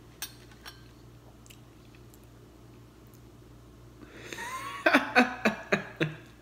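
A man laughing: a run of about five short, pitched "ha" pulses starting about four seconds in. Before that there is only low room tone and a few faint clicks.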